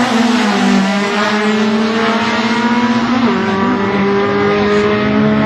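Drag-racing car engine running steadily, its pitch stepping down once about half a second in and again a little after three seconds.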